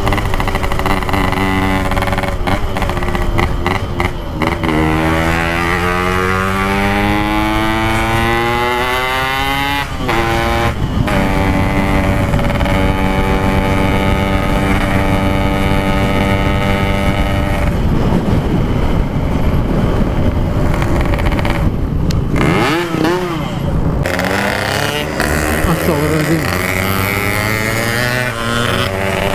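Yamaha RX-King 135cc two-stroke single-cylinder engine through an aftermarket 'packing power' exhaust, ridden on the road. Its pitch climbs steadily for several seconds as it accelerates, drops at a gear change about ten seconds in, then holds a fairly steady cruise.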